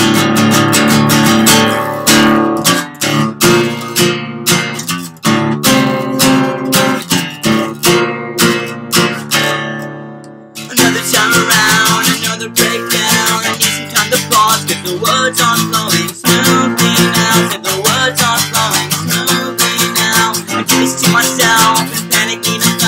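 Acoustic guitar strummed in a steady rhythm. About ten seconds in, a chord is left to ring and fade, then the strumming starts again.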